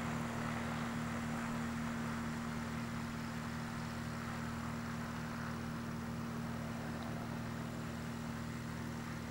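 A steady engine drone holding one unchanging pitch, fading slightly.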